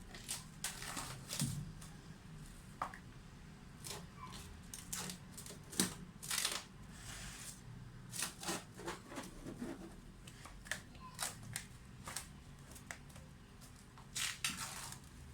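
Irregular clicks, light knocks and short rustles of kitchen things being handled, dozens of separate small sounds spread unevenly through the stretch.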